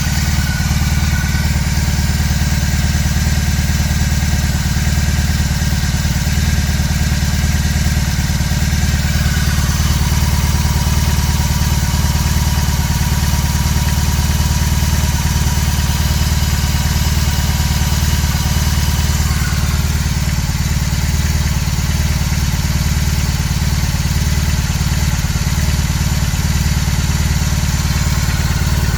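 BMW R18 Classic's big air/oil-cooled boxer twin idling steadily while it warms up after a cold start.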